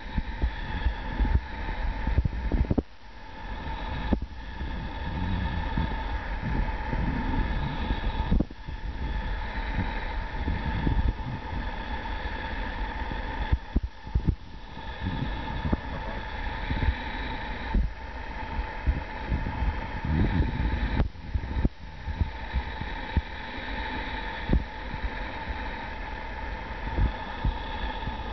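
Low, uneven rumble of wind and handling noise on a handheld camera's microphone, over a faint steady hum; the noise drops out briefly a few times.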